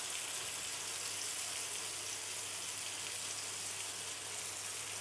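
Tandoori-marinated chicken pieces shallow-frying in hot oil in a pan, with a steady sizzle.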